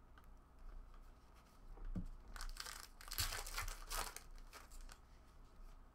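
Foil trading-card pack wrapper being torn open and crinkled by hand, a dense crackling from about two seconds in that lasts roughly two seconds.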